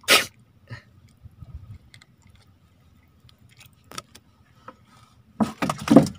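Handling noise from hands working fishing tackle close to the microphone: a sharp rustle at the start, a single click about four seconds in, and a louder cluster of rustles and knocks near the end.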